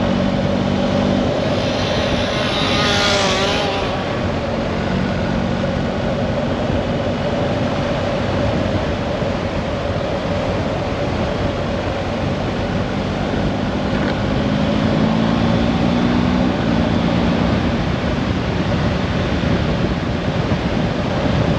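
Steady running noise of a moving vehicle, with a constant hum and a brief swelling whoosh about three seconds in.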